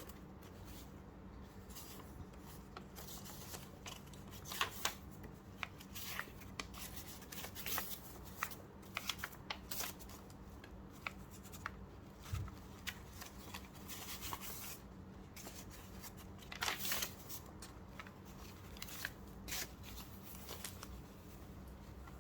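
Paper pages being handled on a tabletop: scattered rustles, swishes and light clicks and taps as the pages are arranged, over a faint steady hum.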